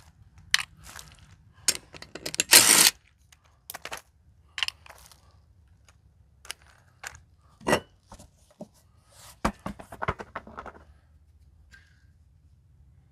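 Scattered clicks, knocks and scraping on gravel as a golf cart's front wheel is unbolted and pulled off the hub, with a louder scraping burst about two and a half seconds in and a few sharp knocks later on.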